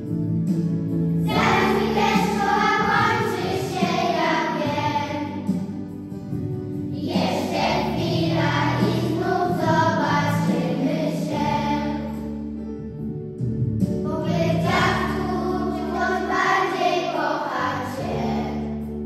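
A group of young children singing a song together in unison over an instrumental backing track, in three sung phrases separated by short instrumental gaps.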